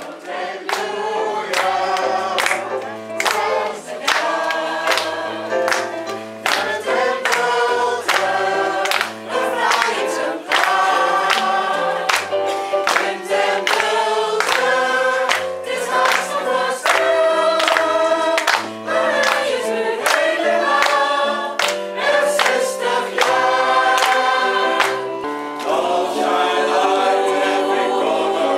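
A choir of women's and men's voices singing a song together, with a steady beat of about two strokes a second underneath.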